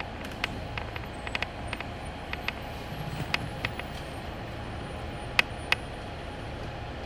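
City bus engine and road rumble heard from inside the cabin, steady throughout, with irregular sharp clicks scattered through it and two louder clicks a little after five seconds in.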